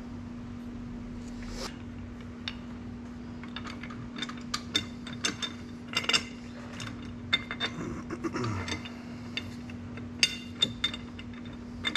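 Aluminium crankcase side cover of a Honda EU3000i generator engine being worked by hand onto the block and its guide pins: scattered metallic clicks and clinks, thicker from about four seconds in, as the cover is pushed and wiggled down over the camshaft bearing.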